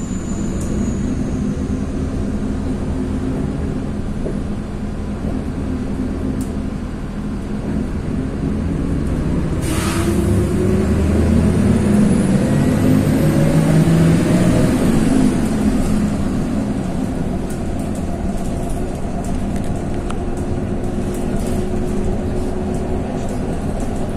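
City bus heard from inside: engine running with a steady low rumble. About ten seconds in comes a short sharp hiss, then the engine and drivetrain rise in pitch and get louder as the bus speeds up, before settling back to a steady run.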